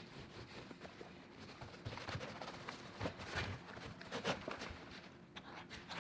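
Hand scrubbing of stripper-softened paint on the metal housing of an old electric motor: irregular rasping strokes with light knocks, a few stronger strokes about two, three and four seconds in.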